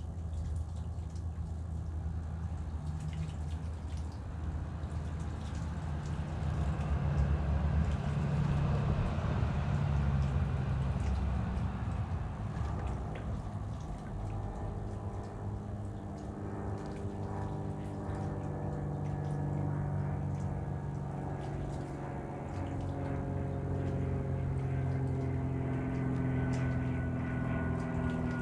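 A motor engine running, a steady low hum that swells about a third of the way in and then settles into a shifting drone over a faint hiss.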